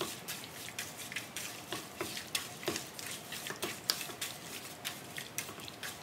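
Bare hands mixing raw chicken wings with a seasoning and oil coating in a bowl: irregular soft wet clicks and squelches, several a second.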